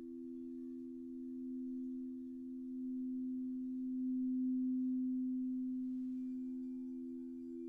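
Crystal singing bowls ringing: two pure, steady tones sound together, swelling louder through the middle, with faint higher tones joining about six seconds in.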